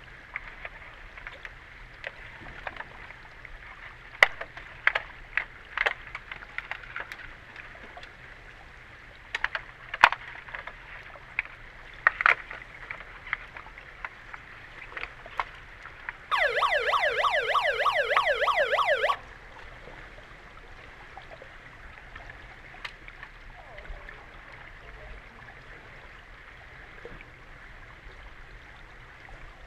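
Heard underwater in a pool: scattered sharp clicks and knocks of underwater hockey sticks and puck against the pool floor. About halfway through, an electronic underwater siren warbles loudly for about three seconds: the referees' signal stopping play.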